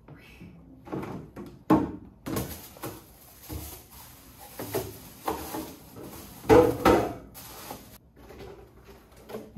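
Irregular knocks, bumps and scrapes of objects being handled in a small room, the loudest clatter about six and a half seconds in.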